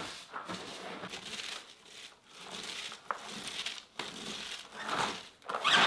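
Hands squeezing and squishing salted shredded cabbage in a plastic bucket, in irregular handfuls, loudest near the end. The squeezing breaks the cabbage down so the salt draws out its brine for sauerkraut.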